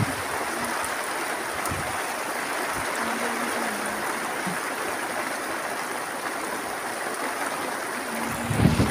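Heavy rain falling steadily on an open field, an even hiss.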